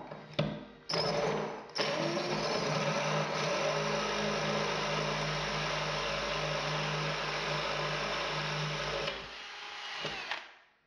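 Cordless drill with a glass-and-tile bit boring into ceramic wall tile, enlarging a pilot hole to anchor size: a short spin about a second in, then a steady run of motor hum and bit grinding that eases off after about nine seconds and stops near the end.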